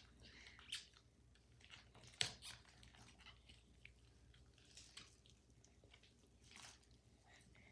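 Faint, sticky squishing and clicking of slime being mixed with shaving cream, with one sharper click a little over two seconds in.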